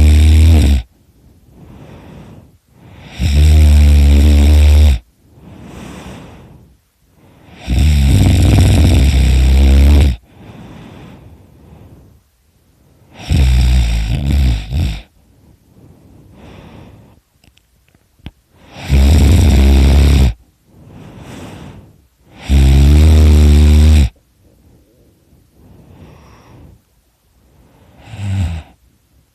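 A sleeping man snoring extremely loudly: about six long, deep snores, one every four to five seconds, with a fainter breath between each, and a shorter, weaker snore near the end.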